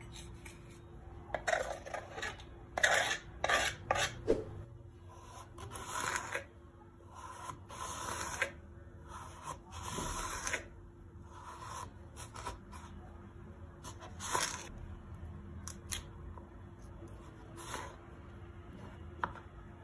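A knife scraping and slicing through raw carrots on a wooden cutting board, in irregular strokes, with a cluster of sharper knocks and clicks in the first few seconds.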